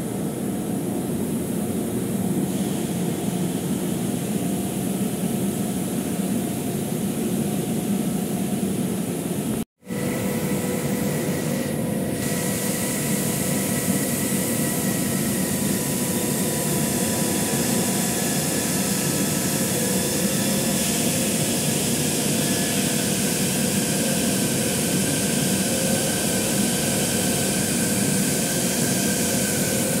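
Industrial plant machinery running: a steady, loud mechanical drone with a low hum. After a brief break about ten seconds in, several steady whining tones ride on top.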